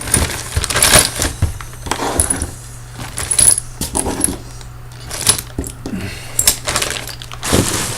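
Metal Russian connector plugs and sockets clinking and rattling against each other, with repeated small metallic clicks and jingles as they are handled and rummaged in a box.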